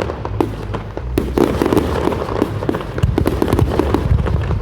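Fireworks going off: a dense run of sharp crackling pops over a low rumble.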